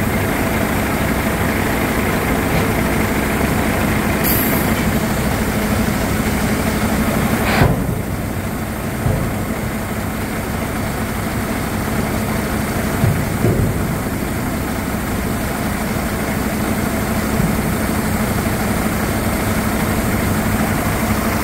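Iveco Trakker AD410T50 tipper's diesel engine running steadily while the hydraulic ram lowers the raised tipper body. There is a brief high hiss about four seconds in and a sharp knock a little under eight seconds in, after which the higher part of the sound drops.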